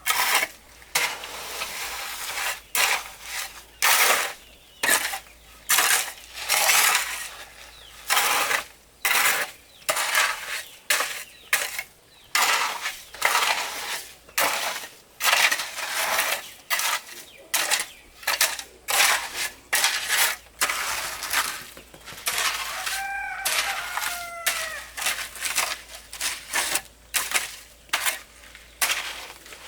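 Repeated short scraping or crunching strokes, about one to two a second, like a hand tool working gritty material. A few brief bird calls come in over them a little past two-thirds of the way through.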